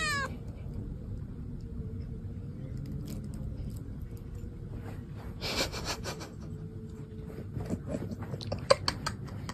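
Soft crinkling of a clear plastic bag worn as a glove, with a few short clicks over a low steady hum, and one brief louder rustle about five and a half seconds in.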